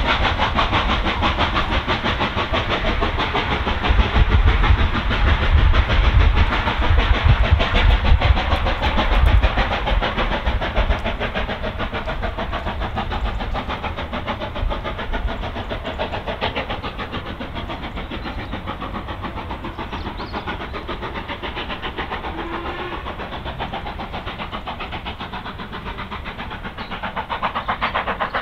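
Steam locomotive working a passenger train away, its exhaust beats coming in a fast, even rhythm over a deep rumble that is heaviest about four to ten seconds in. The sound then fades gradually as the train draws off, with a brief swell near the end.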